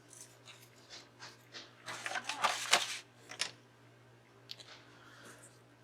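Paper flowers and craft supplies being handled on a tabletop: short rustling and crackling sounds, loudest in a cluster about two to three seconds in.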